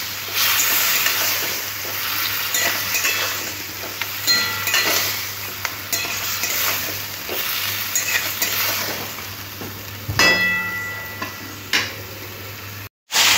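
Vegetables and spice paste sizzling in a metal kadai as a metal spatula stirs and scrapes them, the masala being fried down with a little water. A few ringing clinks of the spatula on the pan, the loudest about ten seconds in; the sound breaks off for a moment near the end.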